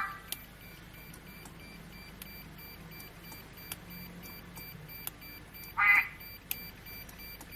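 A custom-sound electronic car horn gives one short, loud, pitched blast about six seconds in. Faint scattered clicks and a low hum run underneath.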